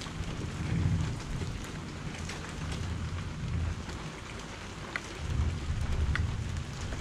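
Steady rain falling, with scattered louder drops striking close by and a low rumble of distant thunder that swells twice.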